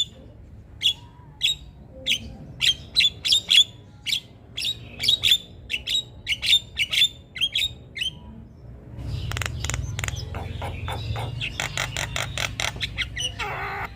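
Javan myna (jalak kebo) calling with a string of short, sharp calls repeated every fraction of a second. After a brief pause near the middle it breaks into a faster, denser chatter.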